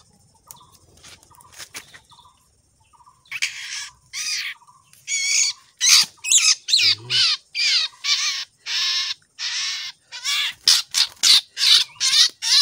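White-rumped shama held in the hand, giving a rapid run of short, harsh squawks, about two a second, that starts about three seconds in after a few faint handling clicks.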